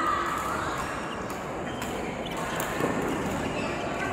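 Badminton hall ambience between rallies: a steady hum of the large hall, a voice trailing off at the start, and a few faint sharp knocks of racket and shuttlecock play and footsteps.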